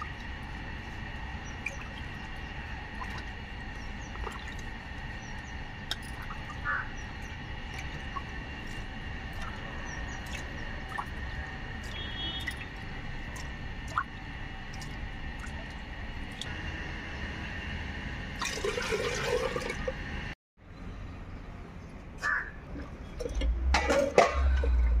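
Small drips and splashes of water with scattered soft clicks as a hand scrapes ground greens from a granite stone mortar and rinses them into a clay pot of water, over a steady background hiss. Near the end come a few sharp clinks of a ladle in a metal cooking pot.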